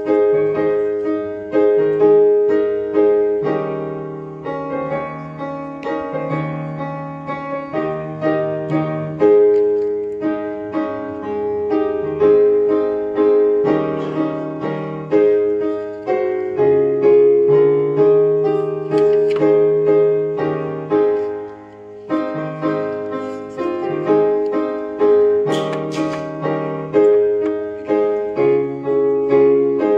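Solo piano playing a slow piece in held chords, a new chord or note struck about once a second and left to fade.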